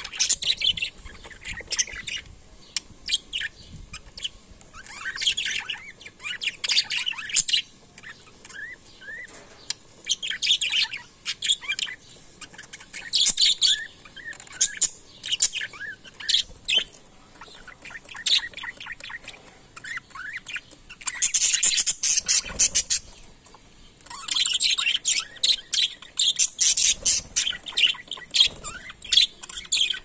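Budgerigars chattering and warbling, a busy stream of short chirps and squawks. The chatter grows denser and louder about two-thirds of the way through.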